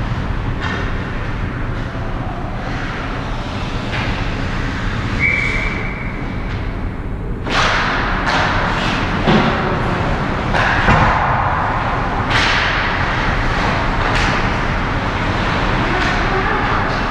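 Ice hockey play close to the net. Skate blades scrape the ice, sticks and puck clack, and there are thuds against the net and boards, all over a steady rink hum. From about seven and a half seconds in, the scraping and clacking turn louder and more frequent as play comes toward the goal.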